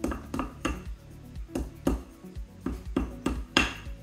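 Claw hammer tapping staples down into a wooden post, a quick run of about ten sharp taps with the loudest near the end. Background music plays underneath.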